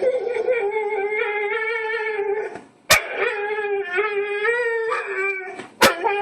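A dog howling: two long, wavering howls, each about two and a half seconds, with a sharp click between them.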